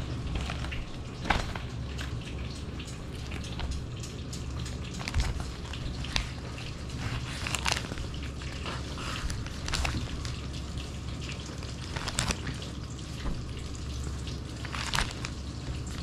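Newsprint pages being handled and turned, with rustles and papery crinkles every second or two over a steady low hum.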